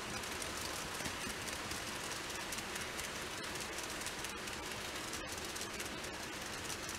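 N-scale model train (TOMIX C55 steam locomotive hauling passenger coaches) rolling on the track: a steady, fine rattling hiss of many small wheels on the rails.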